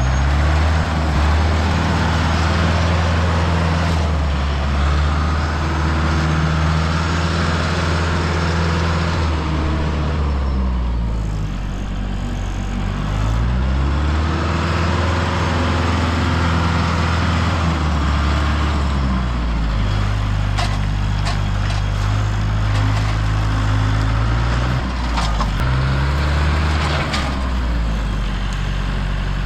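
A heavy vehicle's engine running, its speed dropping and climbing back several times. A few sharp clanks come in the second half.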